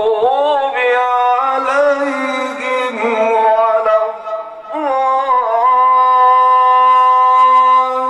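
A man reciting the Quran in a melodic, chanted style: ornamented, wavering phrases, then from about halfway through one long held note.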